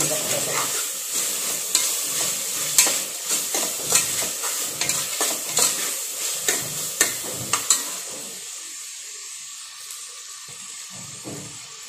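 Metal spoon scraping and clinking against the inside of a pressure cooker as tomatoes and onions are stirred and sautéed in hot oil, over a steady sizzle. The stirring stops about eight seconds in, leaving a quieter frying sizzle.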